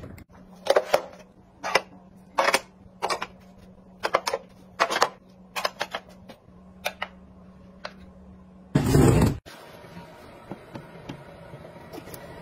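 Irregular sharp clicks, taps and scrapes of hands handling a cardboard parcel and plastic household gadgets, about a dozen over eight seconds, then a short loud rush of noise about nine seconds in.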